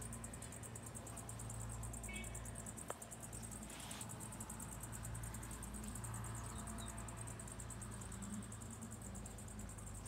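Steady hum of honeybees from an open hive, with a high, fast-pulsing insect chirr above it and a single small click about three seconds in.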